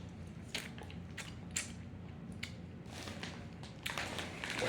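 Chewing Doritos tortilla chips close to the microphone: a run of short, sharp, irregular crunches.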